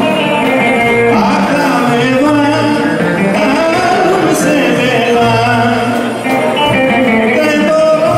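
Live band music played through PA speakers, with singing over a wavering melody line and a recurring bass note, accompanying a circle dance.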